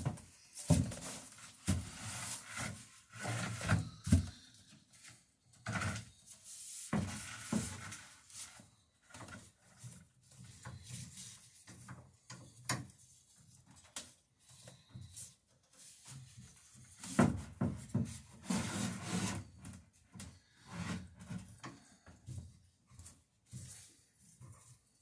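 Wooden plank and clamps being handled against a wooden boat hull: irregular knocks, taps and rubs of wood on wood, busiest at the start and again about two-thirds of the way through.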